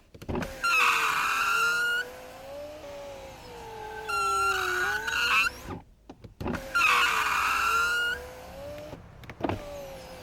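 Tesla Model S 90D electric window motor running as the frameless door glass goes up and down, twice, with a high squeak during long stretches of the travel and a knock where the glass starts and stops. The squeak is the model's well-known window-seal noise, which rubber protectant on the seal cures.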